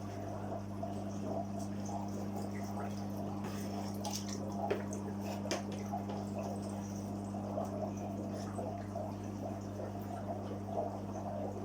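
Water trickling and dripping over a steady low electrical hum, as from the filter or pump of a koi fry tank, with scattered small clicks and splashes.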